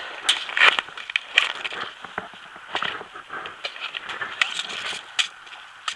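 Irregular crunching and crackling clicks, like someone shifting on dry leaves and brush.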